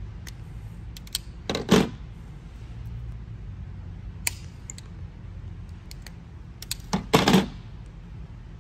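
Small-gauge wire being worked with hand crimping/stripping pliers: scattered light clicks and snips, with two louder short handling noises, one about one and a half seconds in and one about seven seconds in.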